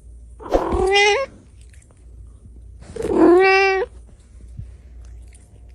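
Domestic cat meowing twice, about two and a half seconds apart, each meow lasting under a second.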